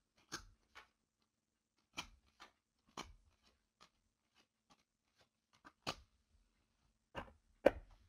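Tarot cards being dealt one at a time onto a wooden tabletop: about ten light, irregularly spaced taps and slaps, the loudest near the end.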